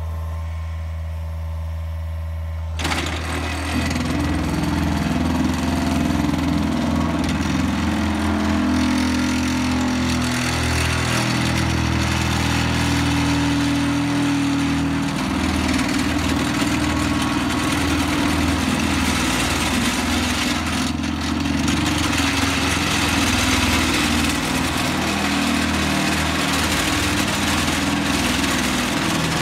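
Excavator engine running steadily, then about three seconds in a hydraulic vibratory pile driver on the excavator arm starts, shaking a fiberglass sheet-pile panel down into the soil with a loud, steady vibrating rattle over the engine working under load.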